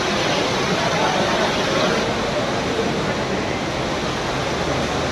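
Heavy rain pouring down in a steady hiss, with water splashing onto flooded ground.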